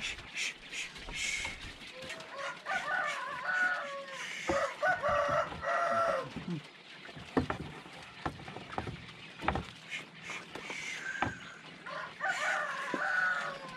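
A rooster crowing three times: two long crows back to back a few seconds in and another near the end. Between them come sharp knocks and rattles from the wooden pen's boards being handled.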